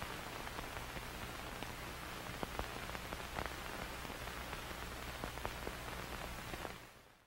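Steady static hiss with scattered crackling clicks over a low hum, like a tape or video noise effect, fading out near the end.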